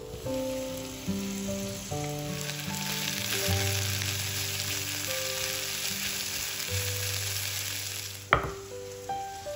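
Sliced red onion sizzling in hot oil in a frying pan while being stirred. About eight seconds in the sizzle stops and a single sharp knock follows.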